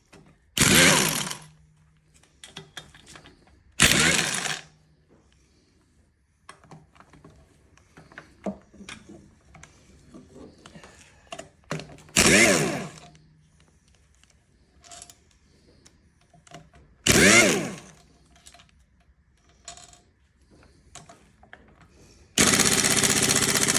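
Power impact wrench hammering at rusted oil pan bolts on a Kohler CV725 engine in four short bursts under a second each, then a longer steady burst near the end; the seized bolts are not breaking loose.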